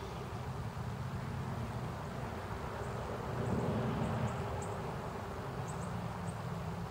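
Quiet outdoor ambience: a steady low rumble that swells slightly midway, with faint, brief high chirps scattered through it.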